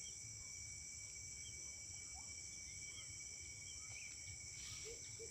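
Evening insect chorus: a steady high-pitched trilling of crickets that never lets up, with a few short bird chirps and whistles scattered over it.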